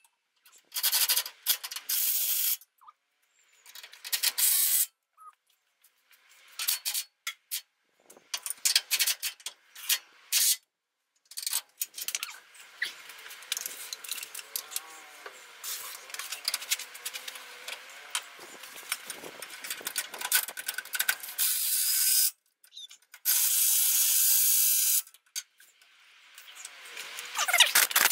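Several bursts of hissing spray, each starting and stopping sharply and lasting one to three seconds, with quick runs of clicking between them like a hand ratchet.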